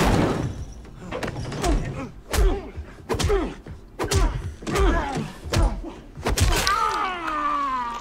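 Fist fight: about eight punches and body blows land at irregular intervals, each with a man's grunt or groan, and near the end comes a long falling groan.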